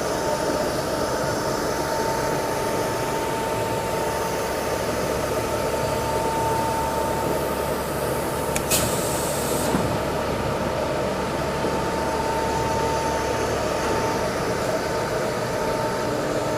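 Reitz stainless steel twin paddle mixer running, its twin electric motors and chain drives giving a steady mechanical hum with a constant whine. A single sharp click comes a little under nine seconds in, with a softer knock about a second later.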